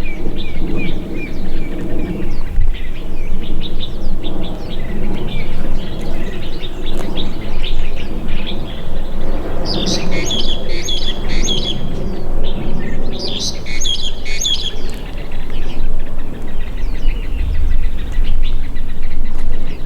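Several birds chirping, with two livelier bursts of song about ten and thirteen seconds in, over steady outdoor background noise.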